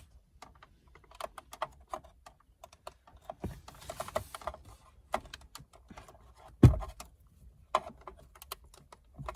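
Scattered light clicks and taps of hands working the plastic buttons and trim of a car dashboard. There is one louder knock about six and a half seconds in.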